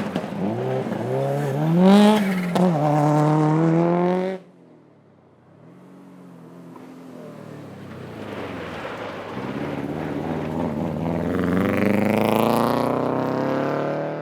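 Rally car engine revving hard, the pitch rising, dipping at a gear change about two seconds in and climbing again, before it cuts off suddenly just after four seconds. A rally car engine then comes in faintly and grows steadily louder, its revs rising as it accelerates, until it stops abruptly.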